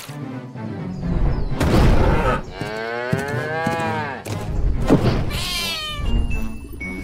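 Cartoon animal calls over light background music: a cow mooing, with a long pitched call that rises and then falls around the middle and a shorter rising call near the end.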